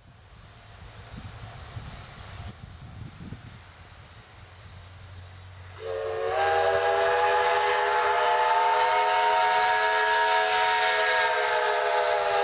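Steam locomotive whistle of a C57 and C56 double-header, a loud, long blast starting about six seconds in, several tones sounding together and sagging slightly in pitch near the end. Before it, only a faint low rumble under a steady high hiss.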